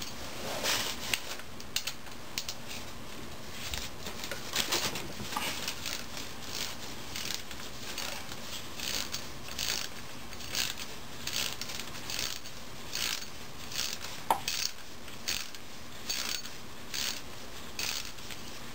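Hand ratchet clicking in short bursts, about one and a half a second, as it backs out the 8 mm bolts holding the speed sensors on a 4L80E transmission case. A single sharper metallic clink about two-thirds of the way through.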